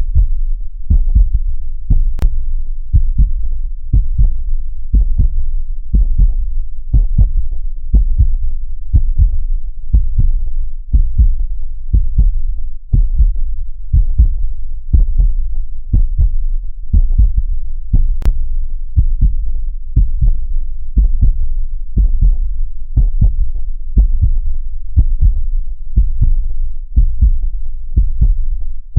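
Steady heartbeat: muffled, low double thumps (lub-dub) repeating about once a second, with a sharp click twice.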